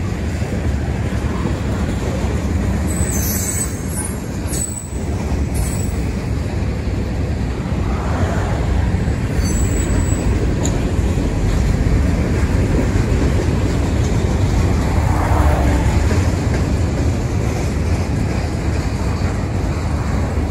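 Freight train cars, mostly covered hoppers, rolling past with a steady rumble of steel wheels on the rails.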